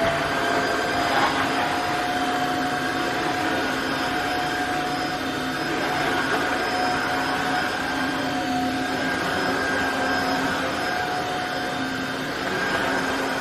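Tineco cordless wet-dry vacuum mop running steadily on a hard floor: an even motor whir with a steady hum of several fixed tones.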